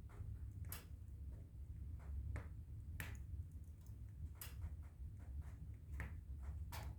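Fire crackling: irregular sharp pops and snaps, a few louder than the rest, over a low steady rumble.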